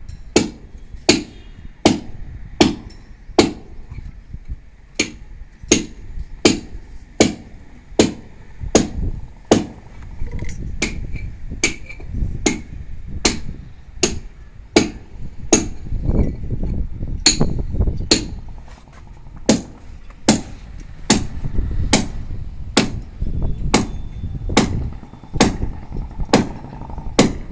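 Steady hammer blows, a little over one a second, knocking a hole through a wall for a hot-water pipe.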